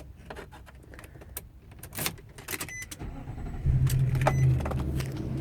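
Keys jangling and clicking in the ignition. About three seconds in, a low steady drone starts up as the key is turned on the Nissan NV that won't start. It swells briefly, and a dashboard warning chime sounds a few times over it.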